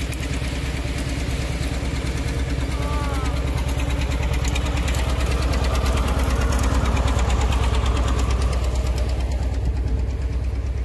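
Old farm tractor's engine running steadily while it tows a pickup truck across sand, a rapid low-pitched firing beat. It grows louder as the tractor passes close, loudest around the middle.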